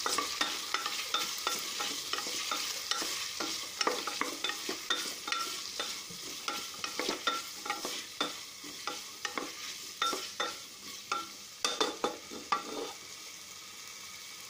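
Wooden spatula stirring diced potatoes and sliced onions frying in hot mustard oil in a pressure cooker, with repeated scrapes and knocks against the pot over a light sizzle. The stirring stops near the end, leaving only the sizzle.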